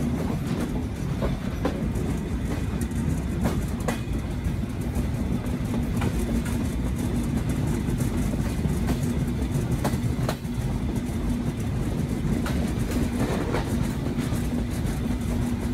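Passenger train running on the rails: a steady rumble with a constant hum and scattered sharp clicks of the wheels over rail joints.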